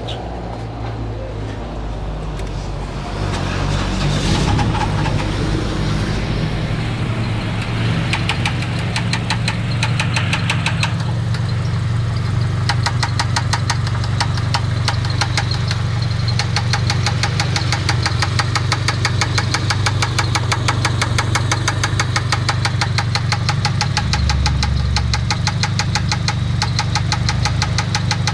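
Engine running steadily, getting louder a few seconds in, with a rapid, regular ticking knock that comes in on top of it; the owner calls it a strange noise and does not know what fault it signals.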